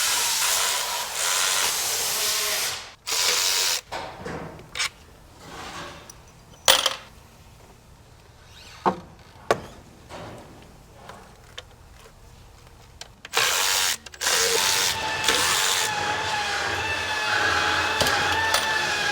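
Handheld power tool running in bursts to undo the upper intake manifold bolts: two runs at the start, a longer run with a steady, slightly rising whine in the last five seconds. Scattered clicks and clinks of tools and metal parts come in between.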